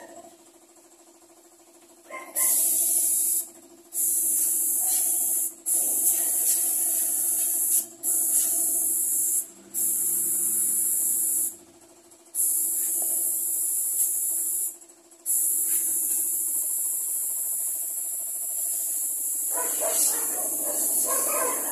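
Compressed-air spray gun hissing in about seven bursts of one to six seconds as the trigger is pulled and released, spraying varnish onto wooden furniture, over a steady low hum.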